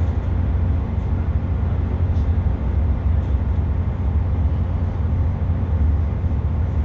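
Interior of a Great Western Railway Class 165 diesel multiple unit on the move: a steady, loud, low diesel engine drone with running rumble, and a few faint clicks.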